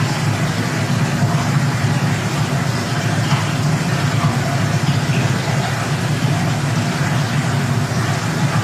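Steady low noise, strongest in the bass, with a fainter hiss above it; even in level and without any beat or rhythm.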